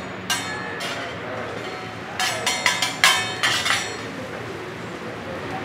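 Metal spatula striking a steel teppanyaki griddle. One ringing clink comes shortly after the start, then a quick run of about eight sharp metallic clinks about halfway through as the spatula's edge chops on the griddle.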